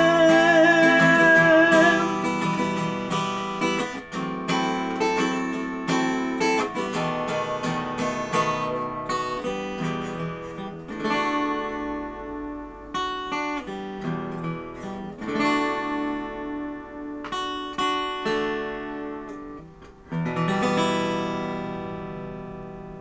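Acoustic guitar playing the song's outro, strummed chords and picked notes, ending with a last chord struck about 20 seconds in that rings and slowly fades. For the first two seconds the singer's voice holds the final sung note over the guitar.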